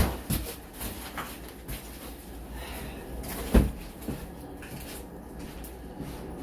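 Hand demolition of interior wall trim and finishes: a loud knock at the very start and another about three and a half seconds in, with lighter knocks and clicks between.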